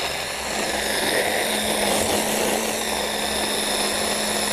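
Hand blender with a mini chopper bowl attachment running steadily, its motor and blade whirring through cooked artichokes and potato.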